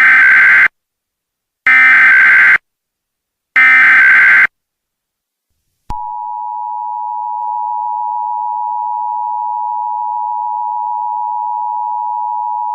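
Emergency Alert System tones announcing an Amber Alert. Three short, buzzy bursts of SAME header data come about a second apart. About six seconds in, the steady two-tone EAS attention signal starts and holds.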